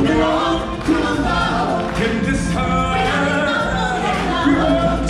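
Choir of stage-show performers singing together over musical accompaniment with a steady bass.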